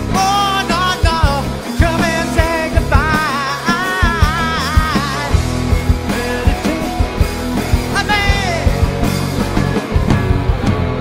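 Rock band playing live on electric guitars, bass guitar and drum kit. A male lead singer holds long, wavering vocal notes through the first five seconds and again briefly about eight seconds in.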